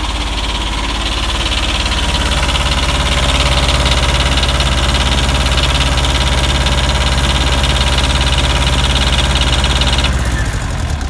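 Diesel generator engine running steadily, then beginning to die near the end as its stop lever is pushed up by hand to choke it off, because the key switch fails to stop it.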